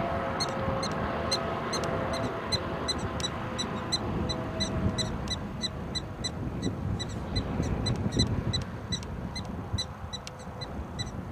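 Black-tailed prairie dog giving a long string of short, high, sharp alarm barks, about three a second, over wind rumble on the microphone.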